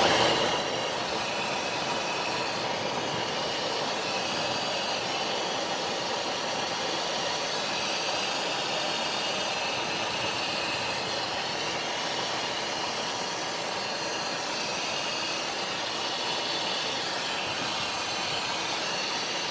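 Steady cockpit noise of a Cessna Citation XLS on final approach with landing flaps set: an even rush of airflow and turbofan engines that holds level throughout.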